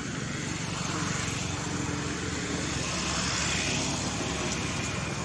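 A steady engine drone, swelling slightly around the middle.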